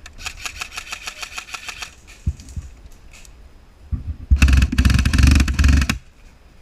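Airsoft guns firing on full auto: a rapid, even burst lasting about two seconds, then a louder, closer burst about four seconds in that runs roughly two seconds and stops abruptly.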